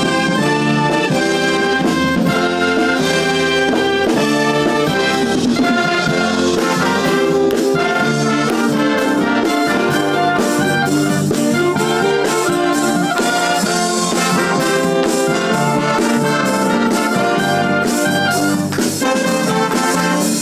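Military wind band playing a tune, brass and woodwinds together: a tuba underneath, with clarinets and flutes on top.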